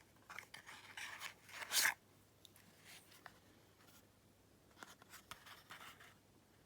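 Small padlocks being handled: scraping and rubbing for about the first two seconds, then a few faint clicks.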